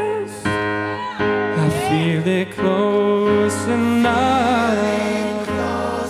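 A cappella backing vocals holding chords under a singer's wavering, gliding melody line, with keyboard chords. The melody carries no clear words.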